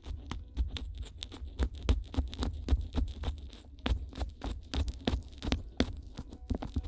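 Fingers massaging and cupping petroleum-jelly-coated ears right over in-ear binaural microphones: a dense, irregular run of crackles and clicks over a muffled low rumble.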